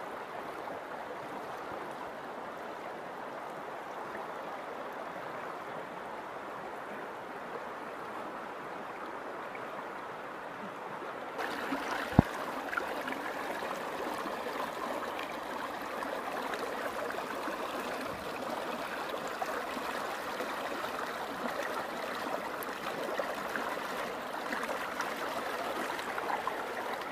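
River water flowing and trickling in a steady rush. About 11 seconds in it turns a little louder and brighter, and a single sharp knock comes just after.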